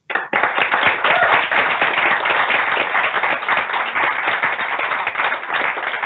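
Audience applauding, many hands clapping at once; the applause starts abruptly.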